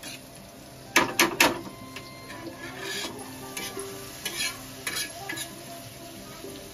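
A metal spatula stirs and scrapes small fresh shrimp sizzling as they fry in a shallow black pan on a gas stove. About a second in, three sharp clacks of the spatula against the pan are the loudest sound. Scraping strokes follow every second or so.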